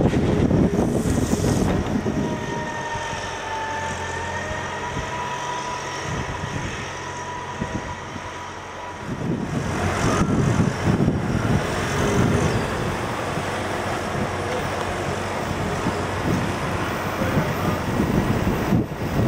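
Volvo EW140C wheeled excavator's diesel engine running steadily with a faint whine. About nine seconds in, heavy wind buffeting on the microphone takes over and largely covers the engine.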